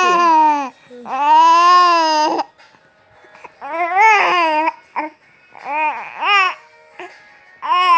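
Baby babbling and cooing in long, drawn-out sing-song sounds, about five of them with pauses between, the pitch rising and falling within each; content-sounding vocalizing.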